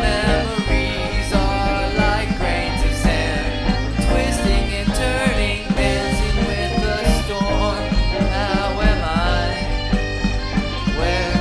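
Band music: guitar lines that bend in pitch over a steady beat and bass.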